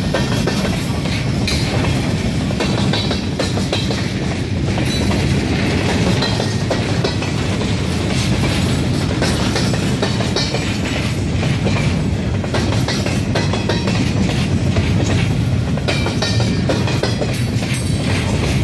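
Freight train of gondola cars rolling steadily past: a continuous low rumble of steel wheels on the rails, with frequent clicks and clanks as the wheels pass over the rail joints.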